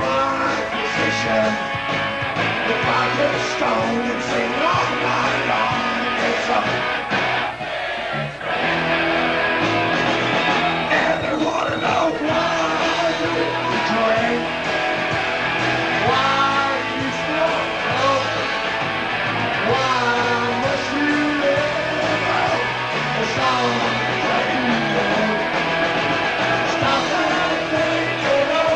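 Live rock band playing loud: electric guitars and drums, with the lead singer singing into a microphone, as picked up by an old camcorder's microphone.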